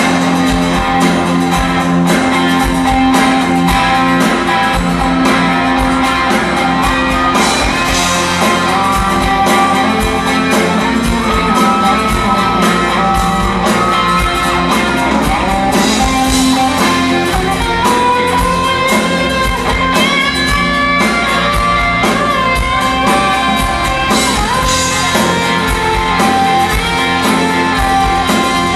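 Live band playing an instrumental break: a lead guitar solo over strummed acoustic guitars.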